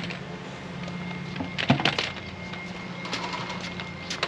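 Small wheels of a folding hand trolley rolling along marina pontoon decking: a steady low rumble broken by a few knocks, most of them around the middle and one near the end.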